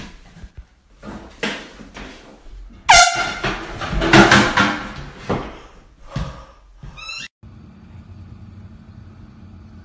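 Handheld air horn blasting about three seconds in, its pitch falling steeply before it settles. Loud noisy bursts follow, and a brief rising squeal comes near the seven-second mark before the sound cuts to a faint steady hum.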